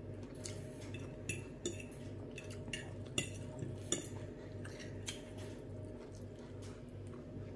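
Metal fork and knife clinking and scraping against a glass plate while eating, in light irregular clicks that come more often in the first few seconds and thin out after. A steady low hum runs underneath.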